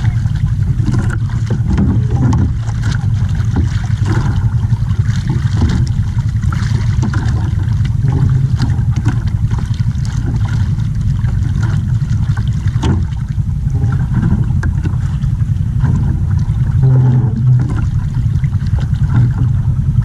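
Small outrigger fishing boat's engine running at idle: a steady low drone that holds unchanged throughout.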